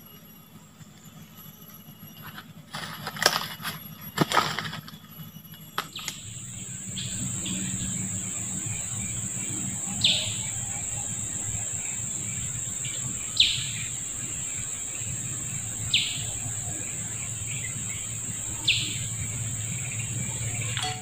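Forest ambience: a few loud crackling knocks about three to four seconds in, then a steady high insect drone that sets in suddenly about six seconds in. Over the drone a bird gives a short falling whistle four times, about every three seconds.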